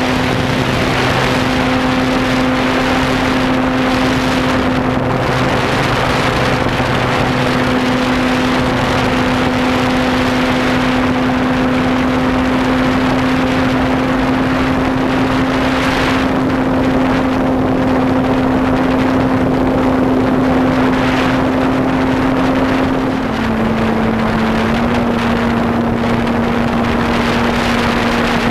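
Radio-controlled model Cessna's motor and propeller running at a steady high pitch in flight, heard from a camera mounted on the plane with wind rushing past it. The pitch steps down a little about three-quarters of the way through.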